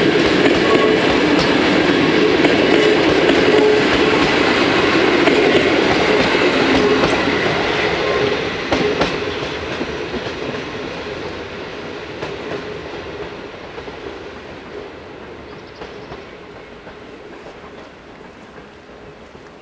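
Intercity passenger coaches rolling past on the rails, their wheels running over the track. The sound fades steadily from about eight seconds in as the train draws away.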